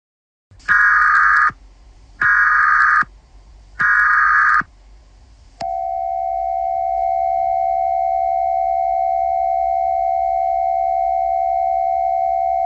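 Emergency Alert System broadcast signal: three short, loud data bursts of the SAME header about a second and a half apart, then the steady two-tone EAS attention signal, which starts about five and a half seconds in and holds on.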